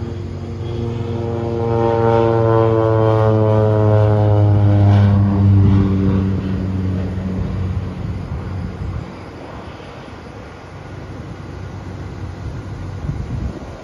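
Crop-dusting airplane's propeller engine passing low overhead: a loud, steady drone whose pitch drops as it goes by, then fades away in the second half.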